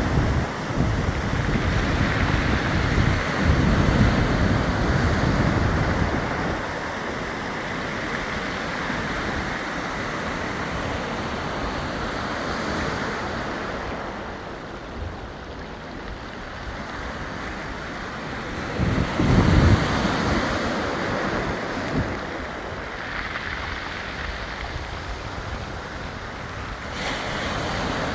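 Waves washing in and out over a beach of round, smooth pebbles, the water rolling the stones. Wind buffets the microphone in strong gusts over the first few seconds and again about two-thirds of the way in.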